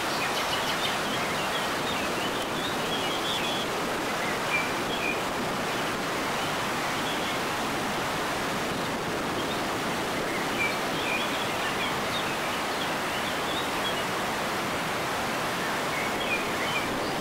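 Muddy floodwater pouring through the open sluice gates of a masonry dam and churning downstream: a steady rush of falling water. Short high chirps come through now and then, near the start, around ten seconds in and near the end.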